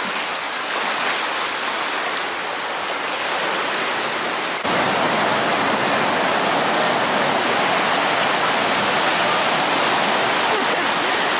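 Ocean surf washing over and around beach boulders, a steady rush of foaming water. About five seconds in it abruptly becomes louder and fuller.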